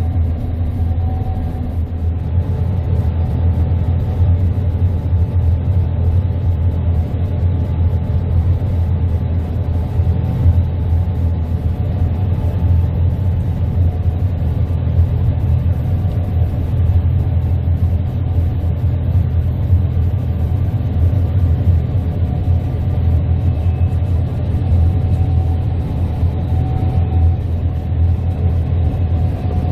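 Gleaner S98 combine harvester running steadily while cutting wheat, a constant low drone with no change in load.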